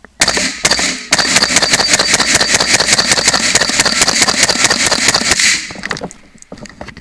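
AR-15 rifle firing a rapid, continuous string of shots for about four and a half seconds, starting about a second in.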